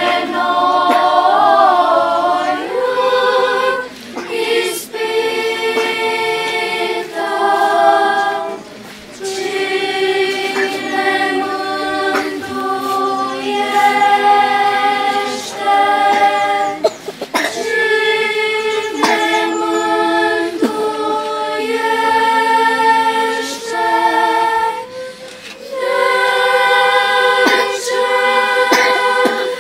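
Girls' choir singing unaccompanied in held chords, phrase by phrase with short breaks between phrases.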